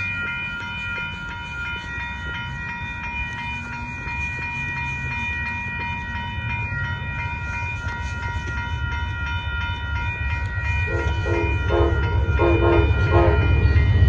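Railroad crossing bells ringing over the rising rumble of an approaching Amtrak passenger train led by a GE P42DC locomotive. About eleven seconds in, the locomotive's horn starts sounding in a series of short blasts, a horn show.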